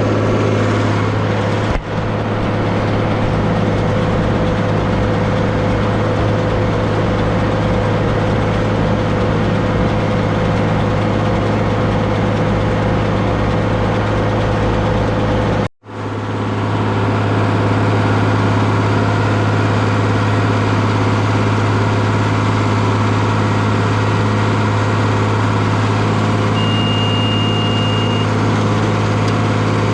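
Deutz D130 06 tractor's air-cooled six-cylinder diesel running steadily while it pulls a John Deere 566 round baler through the hay. A short, high, steady beep sounds near the end.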